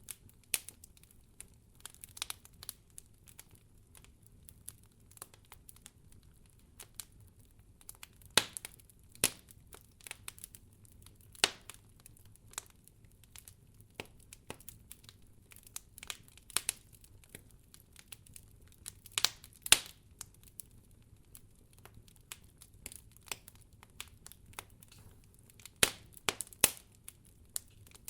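Fire in a fireplace crackling: irregular sharp pops and snaps over a faint low rumble, with a few louder pops now and then.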